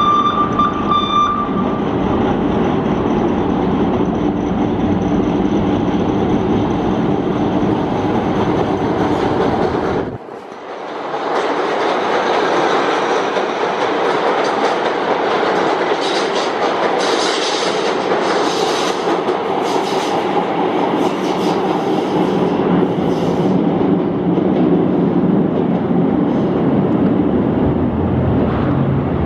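CTA 5000-series 'L' train running at close range along an elevated platform, with a steady rumble of motors and wheels on the rails. The sound dips briefly about a third of the way in, then comes back louder, with high hissing and screeching from the wheels for several seconds.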